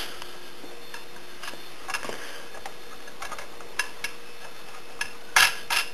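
Small metal hardware clinking as wing nuts are handled: a few faint scattered clicks, then a quick cluster of louder metallic clinks near the end, over a steady background hiss.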